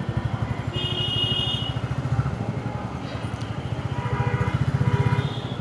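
Motorcycle engine running under way, picked up close by a clip-on wireless mic, with a steady rapid pulse. A short high steady tone sounds about a second in.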